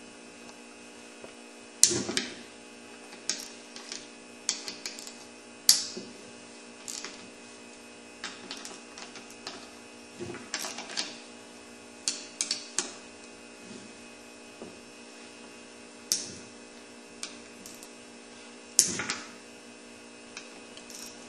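Scattered sharp metal clicks and knocks of hand tools and a partly stripped ATV engine being handled on a bench, about one every second or two, over a faint steady hum.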